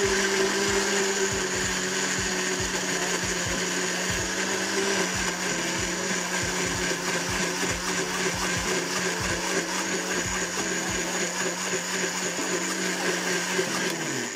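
Electric blender running steadily as it grinds tomato, raw mango, dried red chillies and garlic into a coarse paste. Just before the end it is switched off and its hum drops in pitch as the motor winds down.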